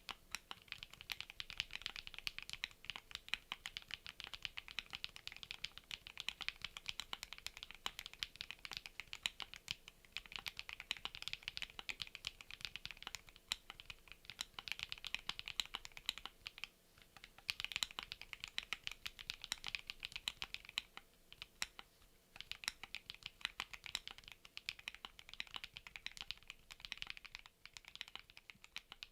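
Continuous fast typing on a gasket-mounted Chilkey PAW65 mechanical keyboard with HMX Jammy linear switches, an FR4 plate and PBT keycaps: a dense run of crisp keystroke clicks, with a brief pause about two-thirds of the way through.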